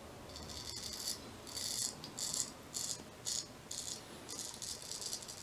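Straight razor scraping through lathered stubble on the cheek in a run of short strokes, about two a second, each a crisp scrape of whiskers being cut; the first stroke is longer than the rest.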